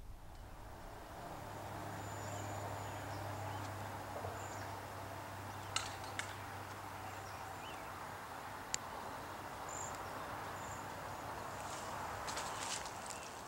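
Quiet outdoor ambience: a steady background hiss with faint, short, high chirps of small birds now and then. There are a few sharp clicks, about six seconds in and again near nine seconds, and a small cluster of clicks near the end.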